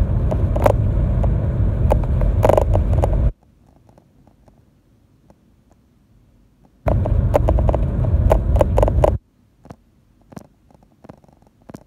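Low rumble of a moving car heard from inside the cabin, with scattered knocks and rattles. It cuts out abruptly about three seconds in, comes back from about seven to nine seconds, and cuts out again. In the gaps there are only faint clicks.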